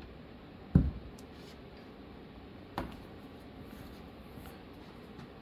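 Two knocks from handling wood and parts on a drill press table: a sharp one about a second in and a fainter click near the middle, over a quiet room hiss.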